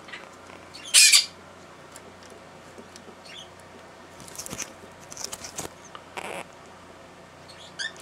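Agitated blue-crowned conure giving one short, harsh screech about a second in. Scattered clicks and scuffles follow, then a few faint chirps near the end.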